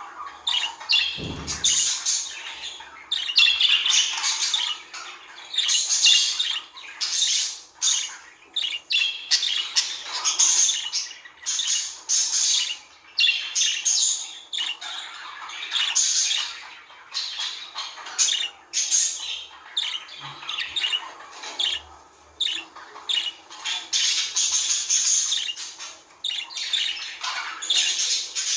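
Budgerigars chattering without pause: a dense stream of short, high-pitched chirps, warbles and squawks.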